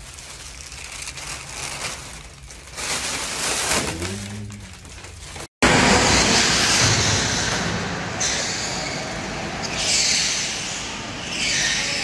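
A long breath blown into a long, thin plastic bag, with air rushing and plastic rustling. After a cut, go-karts run around an indoor track; this is louder, with engine and tyre noise rising and falling as karts pass.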